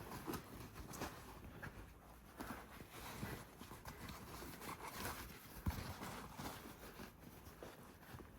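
Faint, irregular clicks, knocks and rustles of an animatronic's plastic parts and cable being handled, with a couple of sharper knocks about five seconds in.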